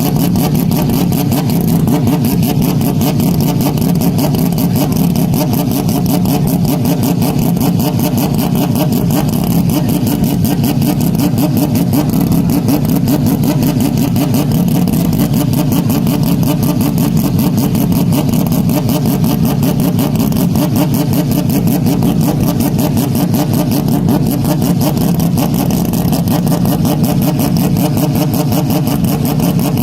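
Historic Group C race car engine running loud and steady, a harsh, dense rasp that holds without fading away.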